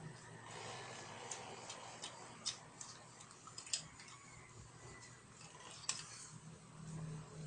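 Faint, irregular wet clicks and smacks of a toddler's mouth chewing food, a dozen or so at uneven spacing.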